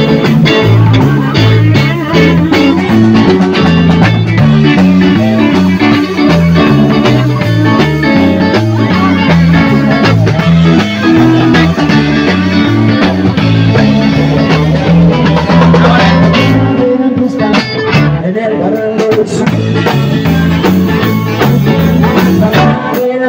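Live band playing loud: electric guitars over a drum kit, with a low bass line stepping from note to note. The low notes drop out for a moment about 17 seconds in.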